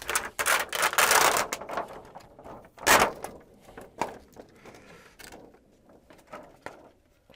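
Scraping and rustling for about two seconds, a sharp knock about three seconds in, then scattered light clicks and taps: handling noise as a TV's backlight parts and tools are worked on.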